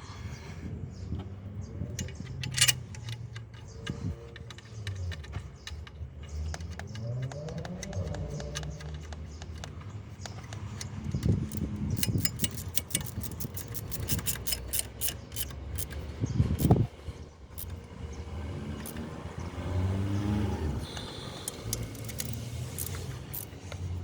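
Metal clinks and clicks from tool work, with a run of rapid clicking about halfway through over a low rumble.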